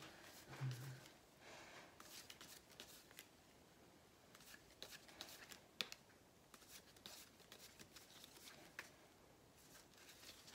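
Faint handling of a deck of playing cards by gloved hands: the cards being cut and flourished, with scattered light clicks and snaps, the sharpest about six seconds in.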